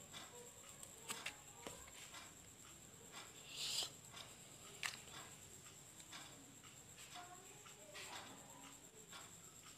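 Faint handling noises of hands working a cigarette and a matchbox: light clicks and taps, a short hiss about three and a half seconds in, and a sharp click about a second later.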